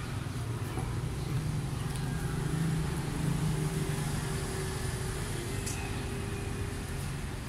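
Road traffic: a steady low rumble of vehicle engines, with a steadier engine note that comes in about three seconds in and fades near the end.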